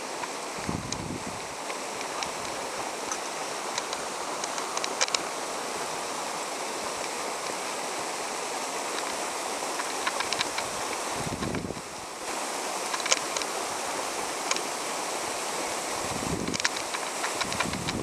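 Steady rushing of falling water from a nearby waterfall, with scattered light clicks and a few brief low rumbles.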